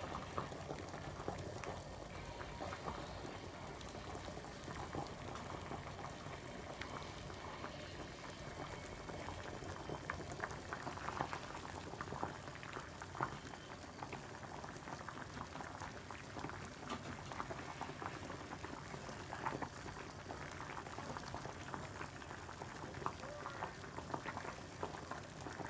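Water boiling in a stainless steel saucepan of green vegetables: steady bubbling with many small pops throughout.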